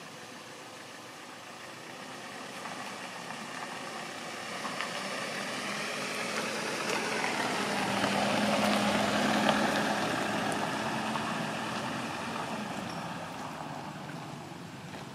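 A motor vehicle's engine passing by, growing louder to a peak about eight to ten seconds in, then fading away.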